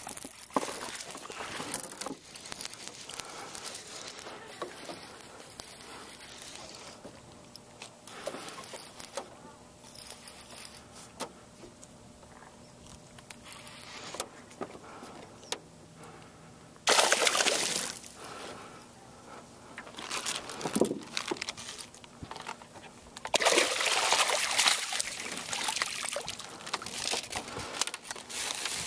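Water splashing as a hooked largemouth bass fights at the surface and is brought to the boat, in loud bursts a little over halfway through and again for several seconds near the end.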